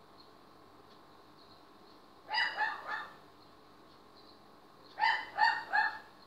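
A dog barking in two quick runs of three short barks, the first about two seconds in and the second near the end.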